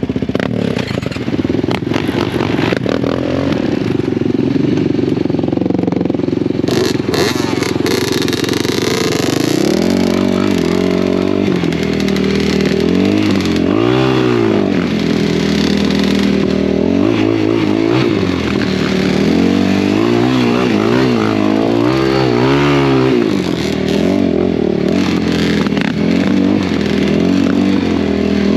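ATV engine running at a steady speed, then revving up and down repeatedly as the machine is ridden.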